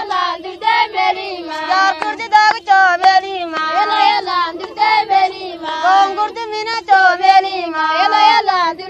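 A high voice singing a melody full of quick bends and ornamented runs, over a steady lower held note.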